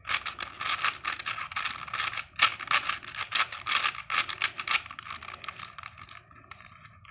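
Stickerless plastic 4x4 Rubik's cube being turned quickly by hand to scramble it: rapid rattling clicks of the layers snapping round, with a brief pause about two seconds in, thinning out and growing fainter over the last two seconds.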